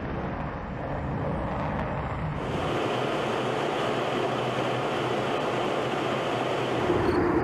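Rockwell B-1B Lancer's four General Electric F101 afterburning turbofans roaring on full afterburner during takeoff and climb-out: a steady, rushing jet roar that turns brighter and hissier about two and a half seconds in.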